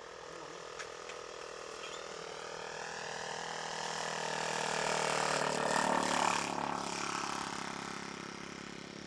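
Radio-controlled model airplane's engine in a low flyby: the buzz grows louder, peaks about six seconds in while its pitch drops as it goes past, then fades away.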